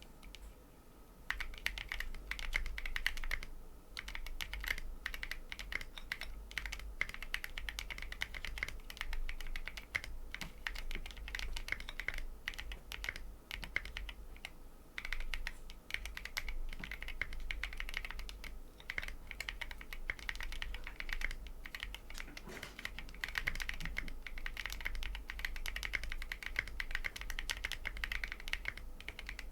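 Typing test on a Bakeneko 60 mechanical keyboard with an FR4 plate, lubed Tecsee Coral tactile switches and SA-profile double-shot ABS keycaps: a steady stream of keystrokes starting about a second in, with a couple of short pauses.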